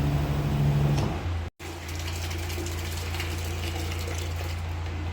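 A motor running with a steady low hum. It cuts off abruptly about a second and a half in, then resumes as a lower steady hum with faint crackling over it.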